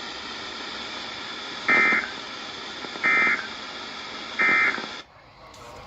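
NOAA Weather Radio sending three short digital data bursts about a second and a half apart over steady radio hiss: the EAS SAME end-of-message code, which closes the alert message. The hiss drops away about five seconds in.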